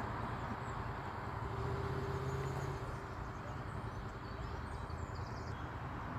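Outdoor background noise with a steady low engine hum, strongest about two seconds in and then fading, and a few faint bird chirps near the end.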